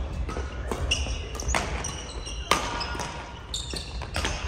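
Badminton rally on a wooden gym floor: several sharp racket hits on the shuttlecock, with sneakers squeaking in short high chirps as the players move.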